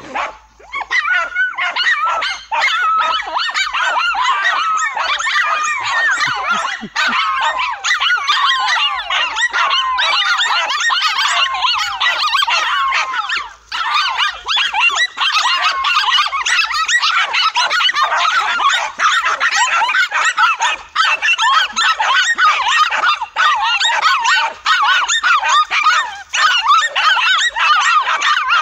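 Several dogs barking and yapping at a tegu lizard, high-pitched and overlapping, with hardly a pause.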